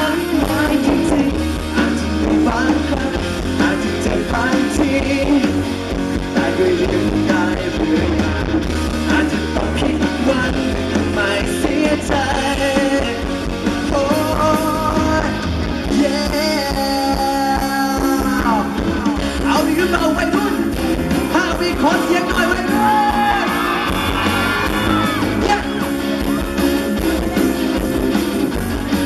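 Live rock band playing with a male singer singing through the microphone over drums and band backing.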